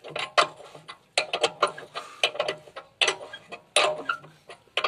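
Irregular metal clicks and clinks of a long-handled socket wrench being worked on a tooth bolt of a JCB excavator bucket, a few clicks a second, some with a short metallic ring.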